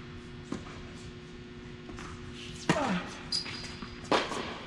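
Tennis ball hit and bouncing during a rally: a few sharp pops. The two loudest come in the second half, about a second and a half apart.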